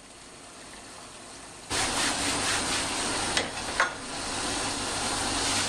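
A steady hissing noise, louder from a little under two seconds in, with two short sharp snaps shortly after the middle.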